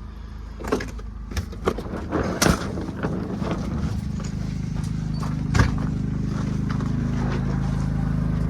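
Footsteps and a few sharp knocks. From about four seconds in, the steady hum of a Predator 3500 inverter generator running under load, growing louder.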